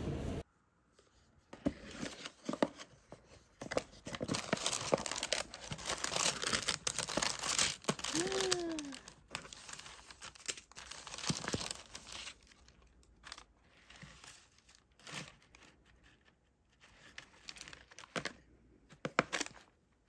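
Tissue paper rustling and crinkling in a cardboard gift box as the wrapping is pulled back, dense for the first ten seconds or so, then sparser.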